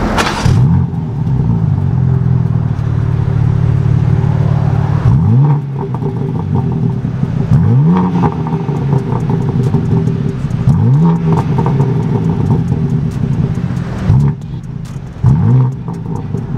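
BMW M3 Competition's twin-turbo inline-six running loud, with a sharp burst right at the start and the revs rising sharply four times.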